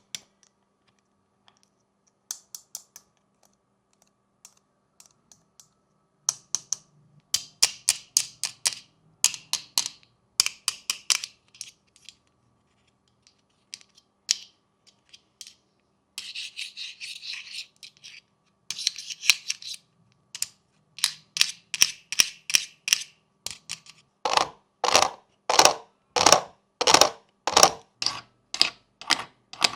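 Fidget toys being clicked and pressed: scattered sharp clicks, a dense run of clicking, and a rasping scratch for about two seconds near the middle. From about 24 s, heavier, fuller clicks come steadily at about two a second.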